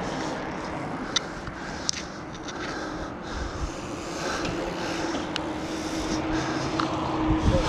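Steady wind and tyre noise from riding a bicycle along a paved cycle path, heard from a handlebar-mounted camera, with a couple of sharp clicks about one and two seconds in.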